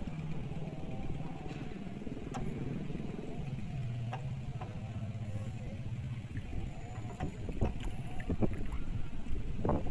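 Boat engine running steadily with a low drone over choppy water, with a few sharp knocks near the end.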